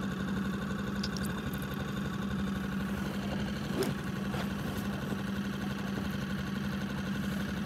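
Outboard motor of an inflatable boat running at a steady speed, an even drone heard from on board.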